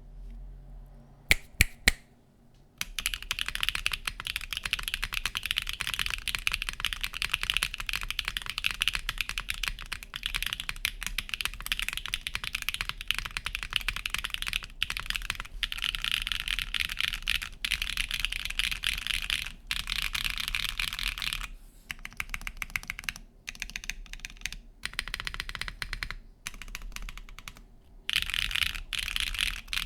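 Fast typing on a custom mechanical keyboard with HMX Waverider v2 tactile switches on an aluminium plate, with only case foam inside. After three sharp clicks about a second in, there is a dense stream of keystrokes, broken by a few short pauses near the end.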